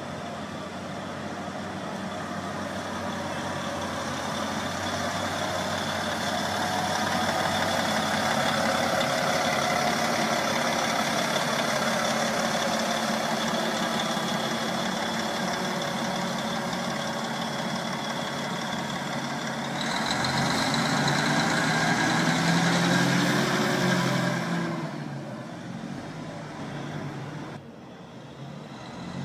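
Engine of a TBL600 towbarless aircraft tug running as it drives, with a steady whine over the engine note. The sound changes abruptly about two thirds of the way through and grows quieter near the end as the tug moves away.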